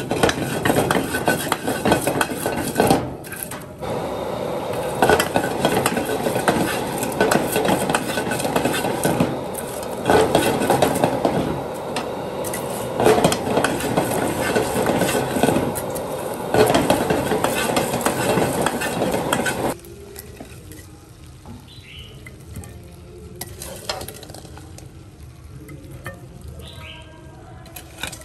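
Stir-frying in a wok: food sizzling while a ladle scrapes and stirs against the pan, with louder surges every three to four seconds as the food is tossed. It cuts off abruptly about twenty seconds in, leaving only a much quieter background.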